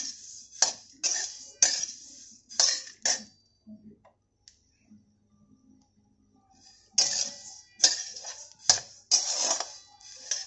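Coriander seeds being dry-roasted in a stainless steel kadhai and stirred with a spatula: a run of scraping, rustling strokes, about two a second, then a pause of some four seconds, then more strokes. The roast is still early, and the seeds are not yet crackling.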